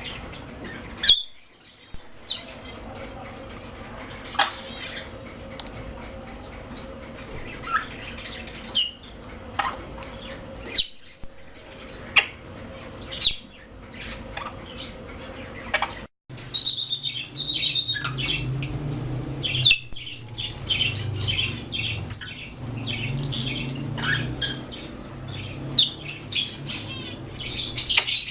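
African grey parrots giving short, sharp squawks and whistles scattered through the first half. After an abrupt break about sixteen seconds in, they give a denser run of rapid calls.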